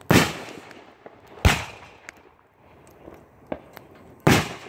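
Aerial fireworks going off: three loud bangs, the first two about a second and a half apart and the third near the end, each with a trailing echo, and a few fainter pops between them.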